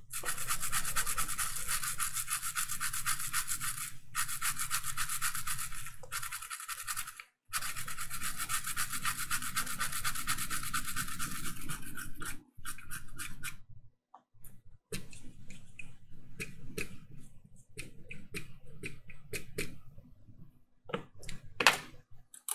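Stiff-bristled brush scrubbing a wet laptop motherboard in rapid back-and-forth strokes, cleaning off corrosion left by spilled wine. The scrubbing is dense for about twelve seconds with a few short breaks, then turns to lighter, scattered strokes and small clicks.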